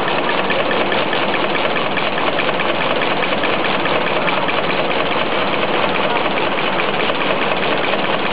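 Roller brush tufting machine running, its tufting head punching bristle tufts into a turning plastic roller in a rapid, even clatter over a steady machine drone.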